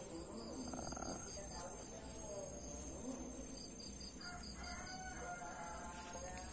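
A long, drawn-out bird call starting about four seconds in and lasting some two seconds, over a steady high insect drone.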